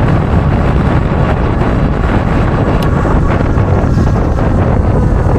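Heavy, steady wind buffeting on the microphone from riding an e-bike flat out at about 31 mph.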